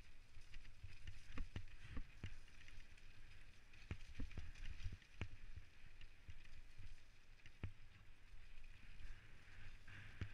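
Specialized Stumpjumper mountain bike rolling fast down a dirt forest singletrack: tyre noise on the trail with many irregular sharp knocks and rattles from the bike over bumps, over a low wind rumble on the camera's microphone.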